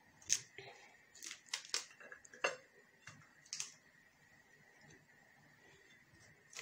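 Wooden spoon tapping the skin of a halved pomegranate to knock the seeds out onto a plate: about six sharp knocks, irregularly spaced, over the first four seconds, then a few faint clicks near the end.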